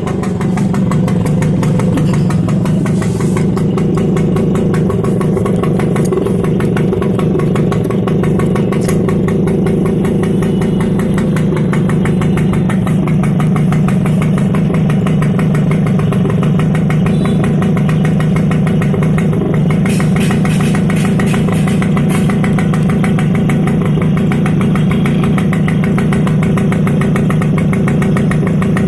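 TVS XL Super Heavy Duty moped engine running steadily and loud at a raised idle, with the mesh taken out of its silencer, which gives it a louder exhaust note.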